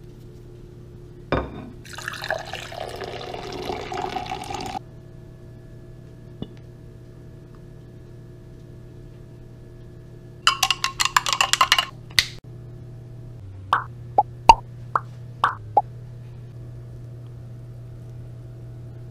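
Dark soda poured into a drinking glass, splashing in two spells. It is followed by five or six short, separate drips plopping, over a steady low electrical hum.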